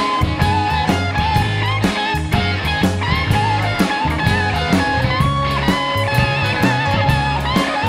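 Instrumental blues-rock band recording: an electric guitar plays a lead line with bent, wavering notes over a steady drum beat and bass.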